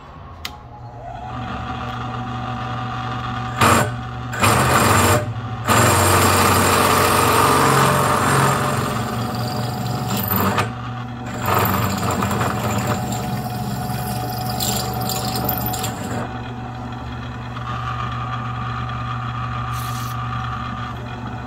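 Drill press motor running with a hole saw cutting into a thick aluminum plate. The cutting noise breaks off briefly a few times, around four, five and eleven seconds in, and is steadier and quieter after about sixteen seconds. A short hiss of spray lubricant comes near the end.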